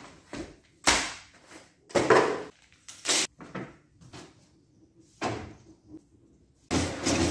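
Paper being lifted from a box and loaded into a Riso RZ digital duplicator's feed tray: a series of separate knocks and rustles, a few of them loud. Near the end the duplicator starts running with a steady noise.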